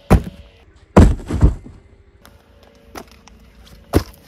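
Footsteps and thuds of sneakers stepping onto hard ground: a thump at the start, a heavier run of thuds about a second in, and one sharp step near the end.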